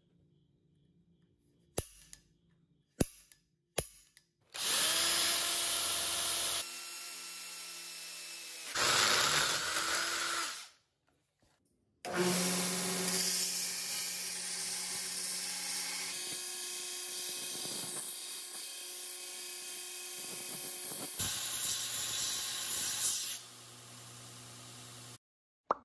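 Belt grinder running with steel being ground against its sanding belt: a loud rasping grind over the motor's steady hum, in stretches that change abruptly, with a short pause before the middle. A few sharp ticks come before the grinding starts.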